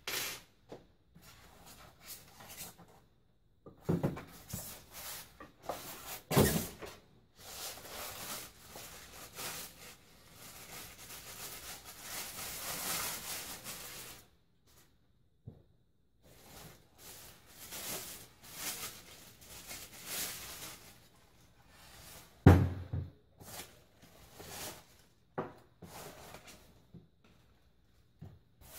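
Microscope parts and plastic packaging being handled on a table: scattered knocks and clunks as pieces are set down, with a stretch of plastic bag rustling in the middle.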